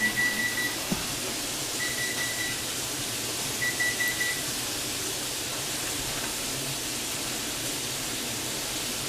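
An electronic kitchen-appliance beep, sounding three times, each beep about two-thirds of a second long and nearly two seconds apart, over a steady hiss.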